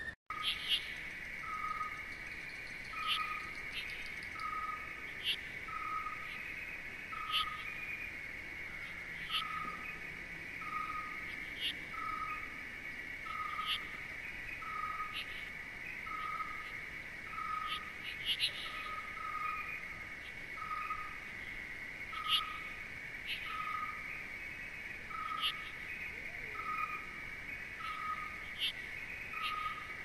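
Tropical-forest ambience. Insects keep up a steady high drone, a short hooting note repeats about once a second, and high bird chirps come every second or two. A brief dropout comes right at the start.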